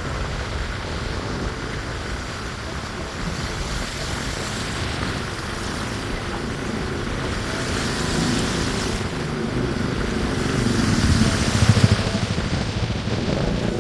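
Vehicle driving along a road: steady engine and road noise, growing louder about eleven to twelve seconds in.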